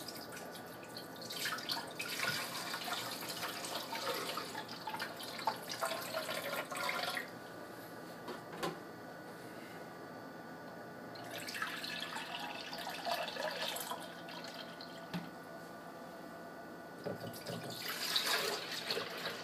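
Soup base of vegetable stock and tomato puree being poured, splashing into blender jars in three spells: a long pour over the first several seconds, a shorter one past the middle, and another starting near the end.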